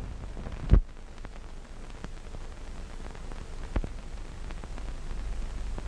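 Hiss and crackle of a worn early-1930s optical film soundtrack, with one sharp thump about three-quarters of a second in and a fainter click a little after the middle.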